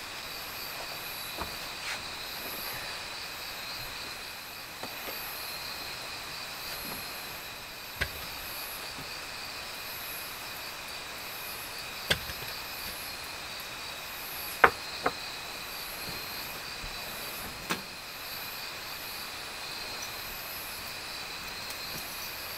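Steady high-pitched insect chorus of a summer forest, pulsing slightly, with a few sharp clicks and knocks scattered through it, the loudest about two thirds of the way in.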